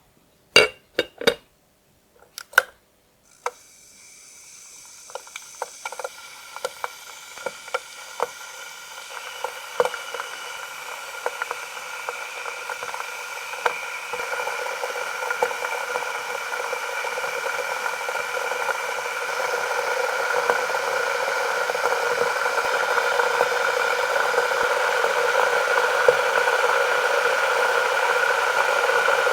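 Electric kettle: a few sharp clicks at the start, then the water heating, a hiss that grows steadily louder with scattered ticks and pops as it builds toward the boil.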